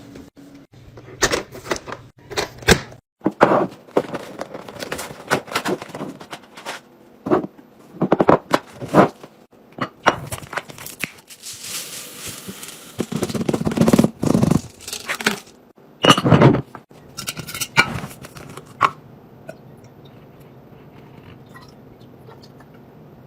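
Containers and packaging being handled while restocking a fridge: a run of separate knocks, taps and clicks as items are set down, with a stretch of rustling about halfway through. Near the end the handling stops, leaving only a few faint ticks.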